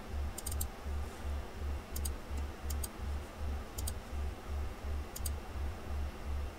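Computer mouse buttons clicking, mostly in quick double-clicks, several times a few seconds apart, over a low throbbing hum.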